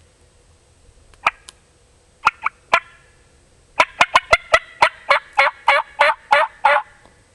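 A hunter's turkey call being worked: a few single sharp notes, then a run of about a dozen rhythmic yelps at roughly four a second, loud and close.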